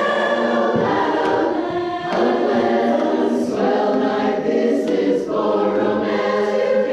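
A cappella barbershop chorus singing sustained chords, the phrases breaking briefly about two seconds in and again about five seconds in.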